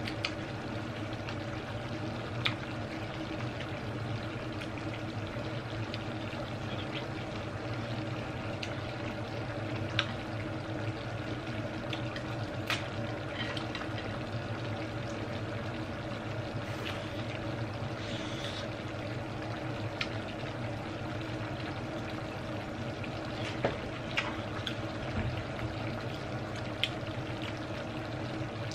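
A steady, even hum with several faint fixed tones in it, under scattered sharp light clicks and taps from eating crab by hand at the table.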